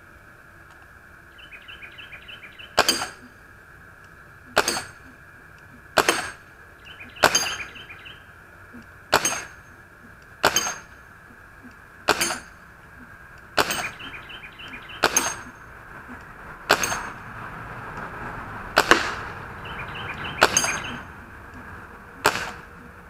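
Crosman 1077 .177 CO2 semi-automatic air rifle fired about a dozen times in steady succession, roughly one sharp pop every one and a half seconds. Pellets clink against the hanging metal targets.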